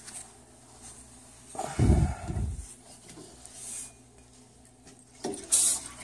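Hand work on copper hydronic boiler piping and valves: a low thump about two seconds in, then a short hiss near the end as air bleeds out of the newly fitted Honeywell SuperVent automatic air vent on the refilled system.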